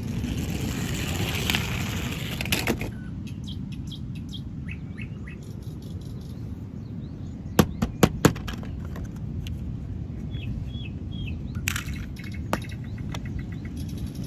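Short bird chirps over a steady low rumble, with a hiss in the first few seconds and a quick run of four sharp clicks about halfway through.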